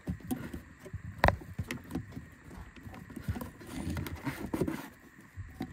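Hands working at a heater hose quick-connect fitting and its plastic clip on the firewall: scattered clicks, light knocks and rubbing, with one sharper knock about a second in.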